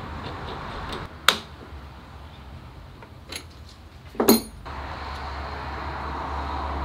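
A few sharp clicks and clinks of metal and hard plastic as the bit and clear plastic depth guide of a Parkside PRSA 20-Li A1 cordless rotary cutter are handled and fitted. The loudest comes about four seconds in and rings briefly.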